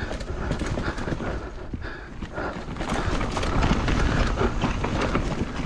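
Hardtail mountain bike riding fast down a rough dirt trail: tyres rolling over dirt and roots, with the bike rattling and clattering over the bumps. Many quick knocks keep coming over a steady low rumble.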